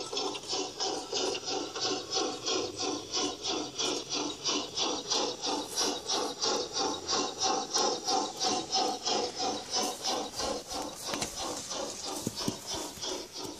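Steam-exhaust chuffing from the onboard sound unit of a G-scale Bachmann Spectrum 2-6-6-2 Mallet model locomotive under way, an even run of hissing chuffs at about four a second.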